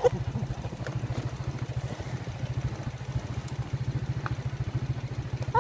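Motorcycle engine running steadily with an even, low putter of about a dozen pulses a second.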